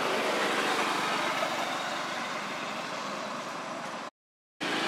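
Steady rushing background noise with no distinct events. About four seconds in it breaks off into half a second of total silence, then resumes.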